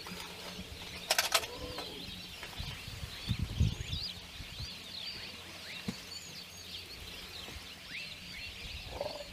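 Many small birds chirping, a steady chorus of short rising and falling calls. A brief noisy burst comes about a second in, and low rumbling thumps come around three to four seconds.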